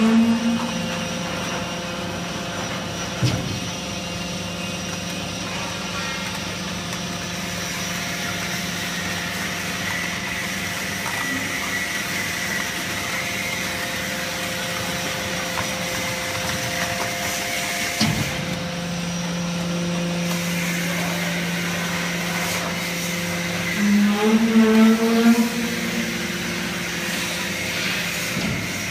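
Enerpat T200XL hydraulic can press running: a steady hum from its motor and piston pump. There is a sharp clunk about three seconds in and another after about 18 seconds. Near the end the pump's note steps up and grows louder for a couple of seconds as it works against pressure.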